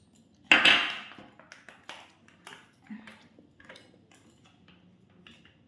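Dishes clattering: a bowl set down sharply about half a second in, then a string of light clinks and taps of a spoon against bowls and plates as food is served.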